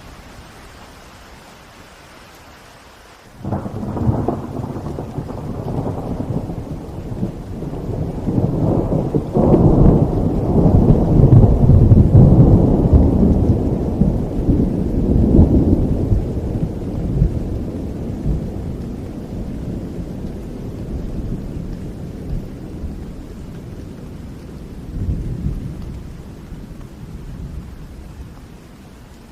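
Rolling thunder over steady rain: a low rumble breaks in suddenly about three seconds in, builds to its loudest peals around the middle, then slowly dies away with the rain still falling.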